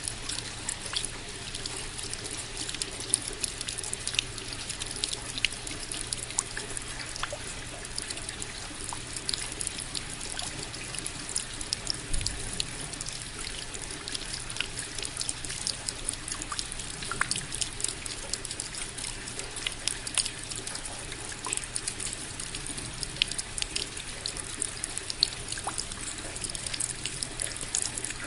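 Steady rain falling, with many small close drips and splashes ticking over a continuous hiss.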